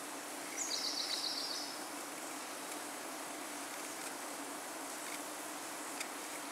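Steady outdoor hiss with a faint low hum, and about half a second in a bird gives one short call: a single high note followed by a quick trill of about eight notes, over within a second.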